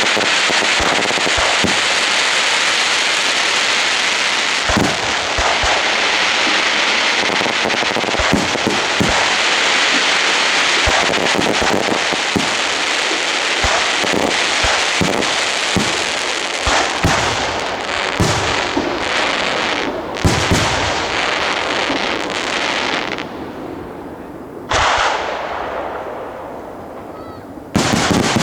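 Fireworks display: a dense, continuous crackle of shells with many sharp bangs. About three quarters through it thins out, with one lone bang, then a fresh loud burst comes just before the end.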